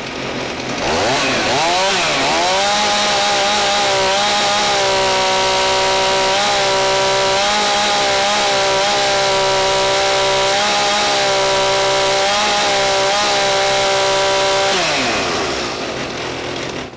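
Stihl MS 391 two-stroke chainsaw revved from idle to wide open throttle. It holds a steady high pitch for about twelve seconds at around 11,700 rpm, wavering slightly, then drops back toward idle near the end.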